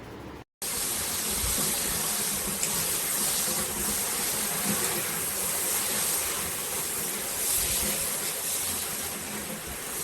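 Handheld shower head spraying water: a steady hiss of spray that starts abruptly after a brief silence about half a second in.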